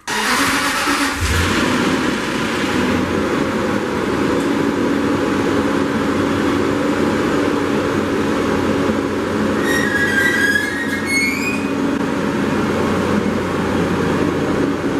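Steady road noise of a moving car: a constant rumble and hiss. A brief high warbling tone comes in about ten seconds in.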